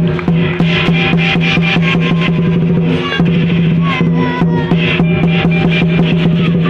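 Lion dance music: fast, even percussion strikes, about four a second, over a steady held low tone.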